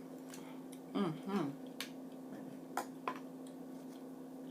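Eating mouth sounds while chewing mussels: a short hummed 'mm' about a second in, then a few sharp clicks and smacks.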